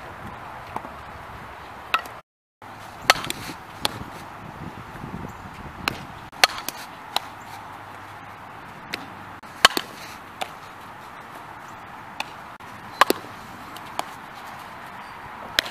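Sharp, scattered cracks and pops of softball practice: a bat striking the ball, then, after a cut about two seconds in, the ball smacking into a leather glove and off the infield dirt during fielding and throwing drills, over a steady outdoor hiss.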